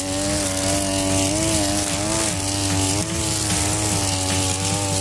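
Two-stroke brushcutter engine running at high revs while cutting through tall grass, its pitch wavering slightly as the load changes.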